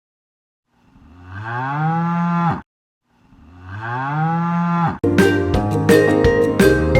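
A cow mooing twice, two long moos that each start low and rise in pitch before stopping abruptly. About five seconds in, a bright chiming music jingle starts.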